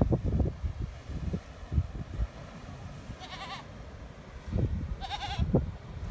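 A goat bleating twice, about three and five seconds in, each a wavering call about half a second long, with irregular low rumbles underneath.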